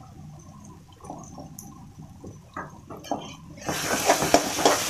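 Steel spoon stirring ginger-garlic paste into frying onion-tomato masala in a kadai: a loud, hissing scrape and sizzle that starts about three and a half seconds in, after a quieter stretch with a few soft clicks.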